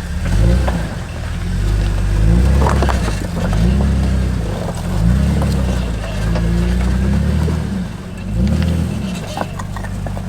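Rock-crawling rig's engine revving up and down in repeated short pulses of throttle as it works over rocks, with a few sharp knocks.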